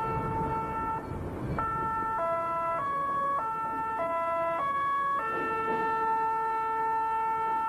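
Meitetsu Panorama Car's music horn sounding as the train runs on the shared road-rail section, warning road traffic. A held note breaks off about a second in, then a melody of six short notes stepping up and down, then a long held note again.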